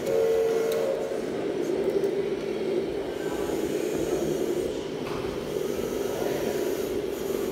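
Scale RC truck's sound unit playing a steady diesel engine sound as the model drives, with a short horn-like tone in the first second.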